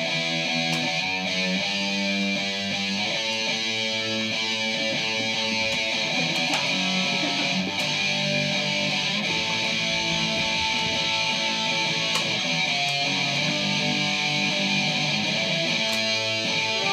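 Electric guitar played live as dramatic mood music: slow, sustained notes and chords that change every second or two.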